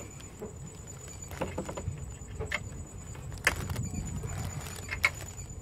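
Irregular metallic clicks and knocks of a spanner working the bolts on an exhaust heat shield, over rustling and scraping of clothing close to the microphone.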